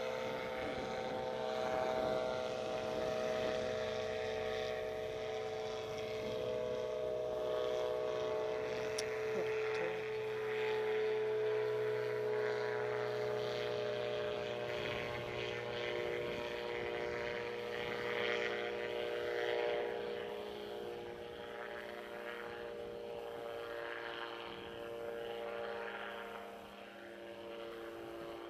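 An engine droning steadily at an even pitch.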